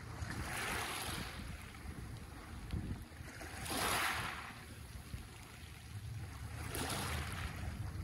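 Small sea waves breaking and washing up over a pebble beach, three times: about half a second in, around four seconds in, and near the end. Each wash is a rising and falling hiss, the middle one the loudest.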